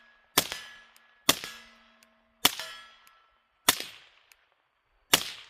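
Suppressed FN Five-seven pistol (5.7×28mm) firing five shots about a second apart. Each of the first three is followed by a short ring, typical of a steel target being hit.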